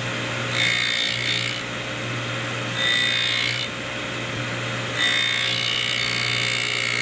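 Rush Model 132 drill grinder running with a steady motor hum while the drill point is ground against the wheel in three passes. A scratchy grinding noise with a high steady note swells up about half a second in, about three seconds in and again at five seconds. This is lip correction: the face of the drill being ground.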